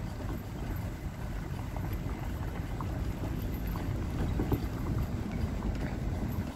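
Pickup truck towing a boat on its trailer slowly over gravel: a steady low rumble with wind buffeting the microphone and a few small clicks and rattles.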